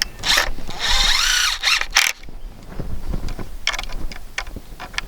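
Cordless drill-driver run in several short bursts, its motor whine rising and falling in pitch as the trigger is squeezed and released, driving fixings through a wooden batten to clamp crop netting to a door frame.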